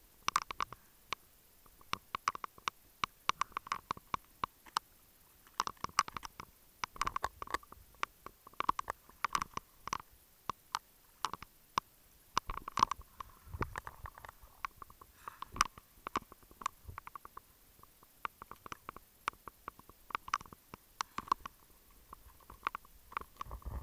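A scuba diver's exhaled bubbles gurgling and crackling underwater, in bunches of irregular clicks and gurgles that come every few seconds.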